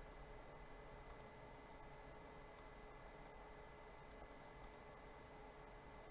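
About five faint computer mouse clicks, each a quick double tick of button press and release, over near-silent background hiss with a faint steady tone.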